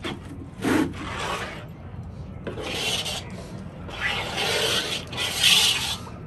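Flour batter being stirred and mixed with milk in a pot: a series of rasping, scraping strokes, the loudest near the end.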